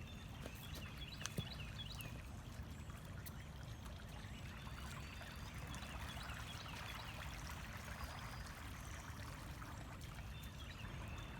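Stream water trickling and flowing, with a few short high chirps near the start and again near the end.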